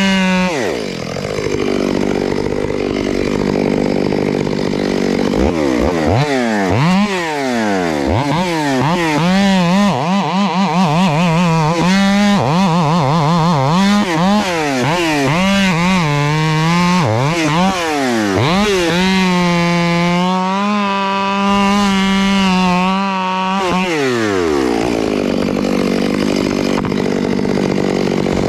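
Chainsaw idling, then revved up and down over and over, held at full throttle for a few seconds, and dropped back to idle near the end.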